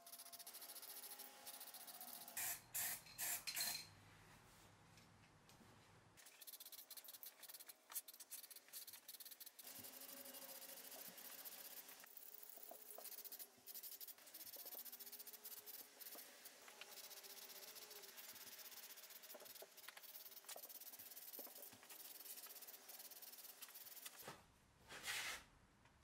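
Aerosol spray-paint can hissing in repeated bursts with short breaks, a few louder bursts near the start and again near the end.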